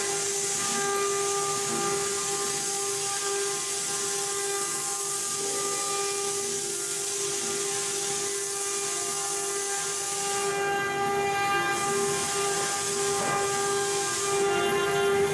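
CNC router spindle running at high speed with a steady high whine, over the hiss of the bit cutting the sheet material; the hiss changes in strength about two-thirds of the way in and again near the end.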